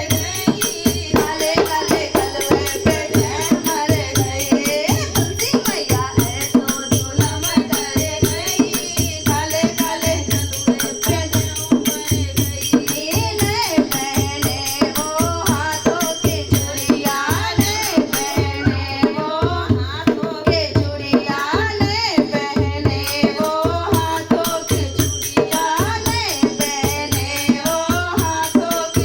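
Hindi devotional bhajan: singing voices over a steady hand-drum beat of about two strokes a second, with jingling rattle-like percussion.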